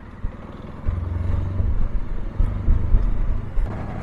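Triumph T100 sidecar outfit's parallel-twin engine running on the move, with a heavy low rumble that comes in about a second in and comes and goes.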